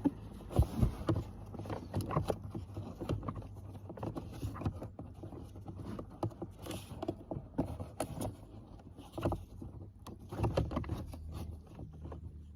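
Scattered light clicks, knocks and scrapes of hands handling the cabin air filter and its plastic housing in a car's footwell, irregular and unhurried, over a faint steady low hum.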